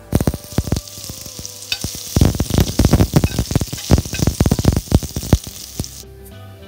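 Hot oil sizzling in a pan as mustard seeds and split dals fry for a tempering, with dense sharp crackles and pops. It gets louder about two seconds in and cuts off abruptly about six seconds in.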